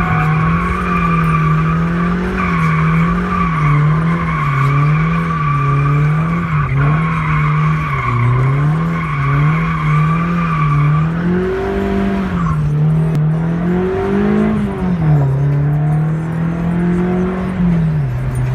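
Car engine revving up and down in quick pulses, about once a second, while the tyres squeal as the car slides. The squeal stops about twelve seconds in; the engine keeps revving and settles low near the end.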